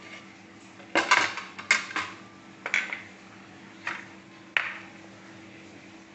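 Small dishes and utensils clattering at a kitchen counter: a run of clinks and knocks, loudest at about a second and two seconds in, with single knocks near three, four and four and a half seconds.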